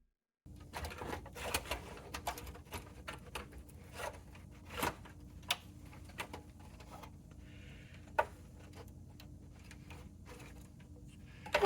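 Hands and tools working inside an oscilloscope chassis: irregular clicks, taps and light scrapes of metal parts and wires, over a faint steady hum.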